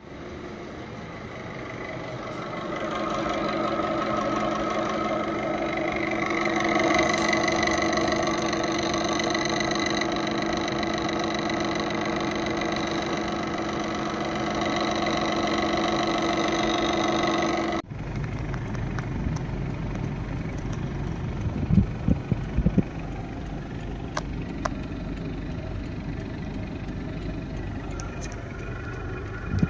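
Front-load washing machine running with a noisy whine: several steady tones that build up over the first few seconds and hold. About two-thirds through it cuts abruptly to a lower, rougher rumble with a few sharp knocks.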